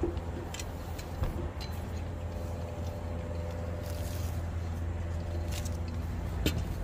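A steady low mechanical hum with a few light clicks and taps of hardware being handled, as screws are worked loose on the roof rails.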